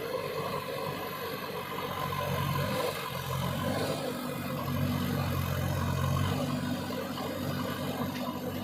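JCB 3DX Super backhoe loader's diesel engine running, rising in revs about two seconds in and easing back after about six seconds.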